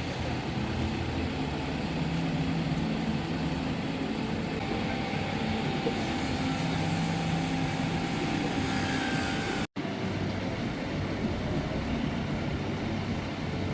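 Steady engine rumble with a low hum, like a large vehicle or machine running; the sound drops out for an instant about two-thirds of the way through.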